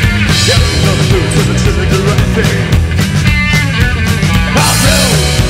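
A rockabilly band playing live with a punk-rock drive: electric guitars, bass and drums, loud and steady, with the top end of the sound getting sharply brighter about four and a half seconds in.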